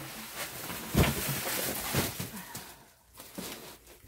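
Plastic packaging wrap rustling and crinkling as metal press parts are lifted out of it, with a sharp knock about a second in; a few lighter knocks follow as it dies down.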